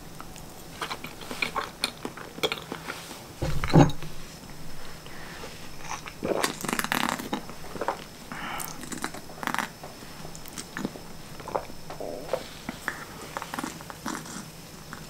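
Close-up eating and drinking sounds at a table: chewing, the glass of avocado-banana juice being handled and sipped from, and small clicks of cutlery and glass. There is one heavier thump about four seconds in.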